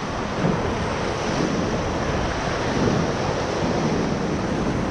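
Steady rush of river whitewater around a raft, with wind buffeting the microphone.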